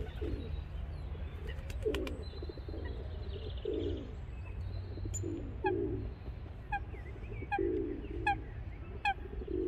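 Feral pigeons cooing, low calls repeated every second or so. From about halfway through, another bird joins with a short high call repeated about every half second, over a steady low rumble.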